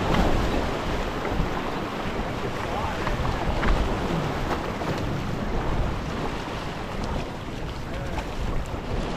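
Small waves washing and splashing against the rocks of an inlet shoreline, with wind buffeting the microphone.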